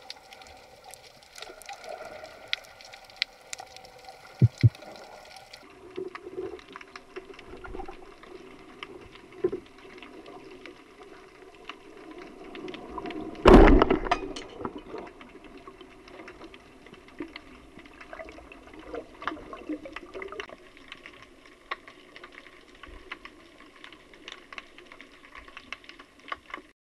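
Underwater ambience picked up through a camera housing: a steady water hiss with scattered crackling clicks. About halfway through comes a single loud thud with a short ringing tail, fitting the shot of a Roisub Michelangelo Fusion roller speargun.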